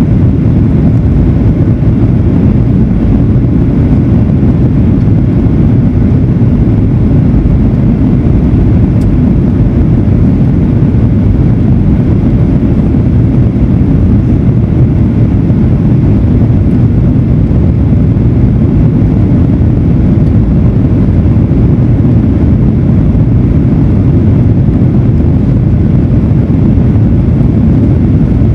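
Steady low rumble of a Boeing 737-900ER's engines and airflow, heard from inside the passenger cabin.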